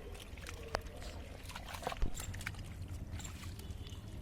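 Muddy water sloshing and splashing in short bursts as hands work through it, with a knock about two seconds in, over a steady low rumble.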